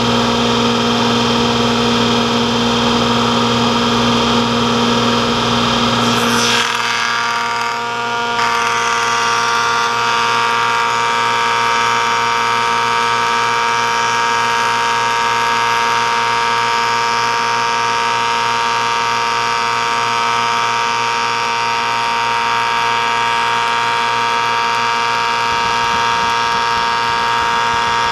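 Planer-molder running and cutting as a board feeds through it, a loud steady machine whine with several held tones. About six seconds in the sound shifts: a low hum drops away, and a couple of seconds later a new higher tone sets in.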